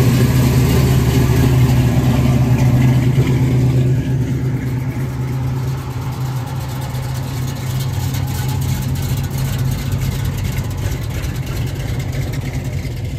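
Classic cars' engines idling as they roll slowly past in turn. The nearest engine is loudest for the first four seconds, then the sound drops and carries on steady and quieter.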